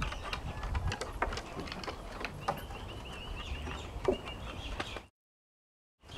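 Dog paws and claws knocking and tapping on wooden porch steps, in irregular single knocks. About two seconds in, a bird gives a rapid trill of high chirps. The sound cuts out completely for about a second near the end.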